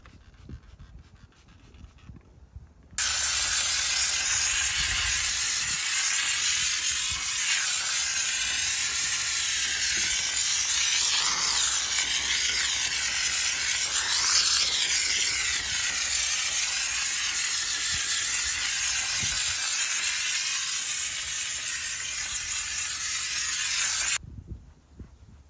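Loud, steady hiss of a pressurised cleaning jet, starting suddenly about three seconds in and cutting off suddenly near the end.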